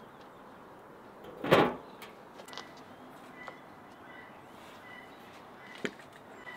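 A lid scraping and settling onto the mouth of a clay tandoor oven, one short sliding knock about one and a half seconds in, the loudest sound here. Near the end a single sharp clink of a tea glass set down on its saucer, with faint bird chirps.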